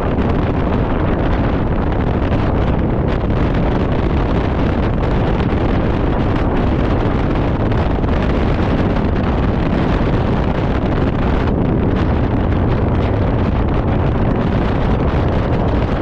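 Steady wind rumble buffeting the microphone of a GoPro worn by the rider of a moving motor scooter, with the scooter's running and road noise mixed underneath.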